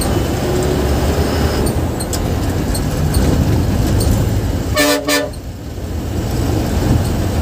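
Bus engine and road noise heard from the driver's cabin while under way, with a vehicle horn sounding two quick blasts about five seconds in.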